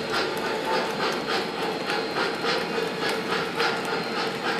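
MTH Premier O-gauge GS-4 steam locomotive's Proto-Sound 2 sound system chuffing steadily, about two to three exhaust chuffs a second, over the rolling rumble of Daylight passenger cars' wheels on the track.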